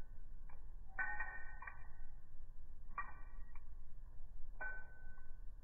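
Short ringing pitched notes, three of them roughly two seconds apart, with a few faint ticks between, over a steady low hum.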